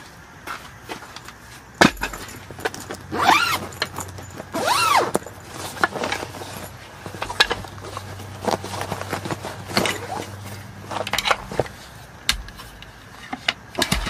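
Wooden slats of a roll-up camp table clattering and knocking as they are handled and unrolled, with sharp clicks and taps throughout. Two short rising-and-falling squeaks come about three and five seconds in.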